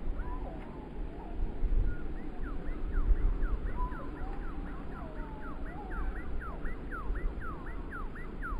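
Strong wind gusting on the microphone as a low rumble. Behind it a distant siren wavers, then switches to a rapid yelp of falling sweeps, about three a second, from about two seconds in.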